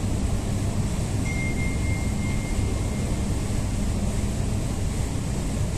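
MTR Island Line M-train moving in the tunnel's turnback siding: a steady low rumble echoing in the tunnel, with a thin high tone about a second in that holds for about two seconds.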